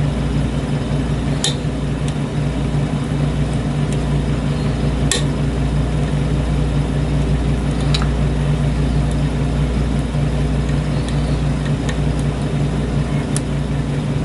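A steady low hum runs throughout, with a few faint sharp clicks of a lock pick and tension tool working the pins of a lock cylinder, four clicks spread over the stretch.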